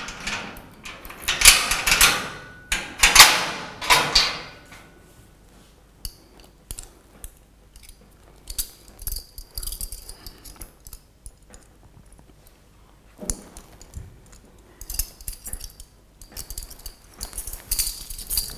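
Keys jangling and metal clinking as a lock is worked at a barred jail-cell door, with several loud metallic clatters in the first four seconds, then scattered clicks and jingles.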